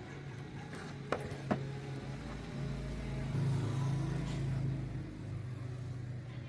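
A motor running with a steady low hum that grows louder for a second or so about three seconds in, with two sharp clicks shortly after one second in.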